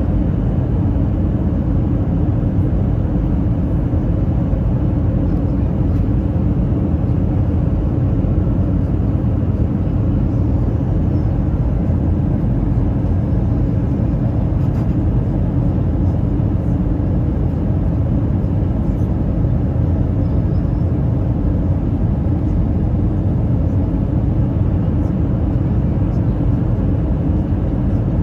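Steady low rumble of an Airbus A320's engines and rushing air, heard from inside the passenger cabin during the descent.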